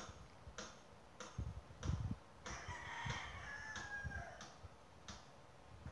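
Background hammering: sharp knocks about every two thirds of a second, with heavier thumps about two seconds in. A rooster crows for nearly two seconds in the middle.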